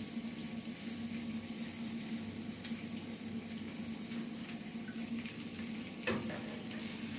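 Hot frying oil poured from a skillet into a metal baking pan, a steady soft trickle over a faint sizzle of the frying chicken, with a low hum underneath. About six seconds in there is a single knock as the skillet is set back down on the stove grate.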